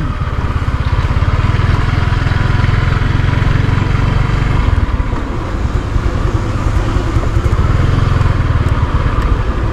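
Motorcycle engine running steadily while riding slowly, easing off briefly about halfway through before picking up again.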